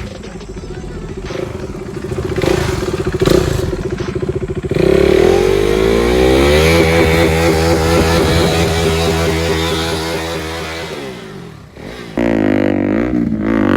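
Motorcycle engine and exhaust running, a lower pulsing rumble at first. About five seconds in the engine note suddenly gets much louder and holds for several seconds, then fades. Just before the end a loud note comes back and falls in pitch.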